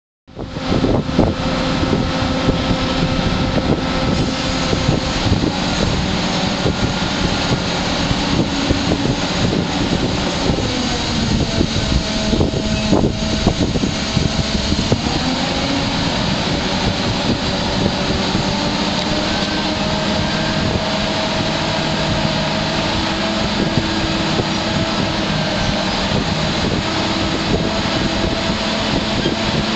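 Marine travel lift's engine running steadily as it hoists a boat in its slings, with a whine that shifts in pitch about halfway through.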